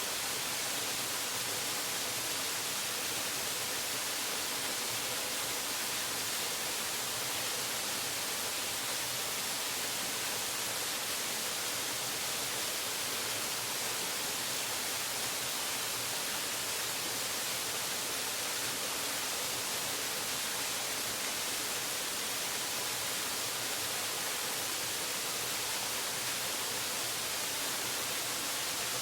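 Waterfall, a steady unbroken rush of falling water, bright and hissy with little low end.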